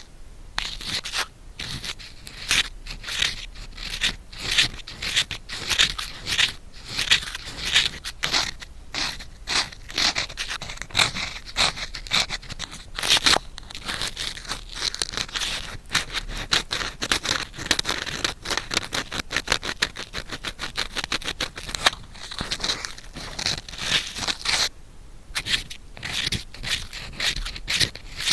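Bamboo ear pick scraping in quick, repeated strokes at the ear of a binaural (3D-audio) microphone, with a short pause about three-quarters of the way through.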